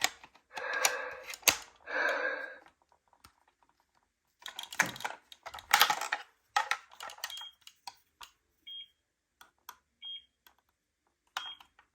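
Two breath-like whooshes, one right after the other, then scattered clicks and rattles of handled plastic toys, with four short high beeps about a second and a half apart.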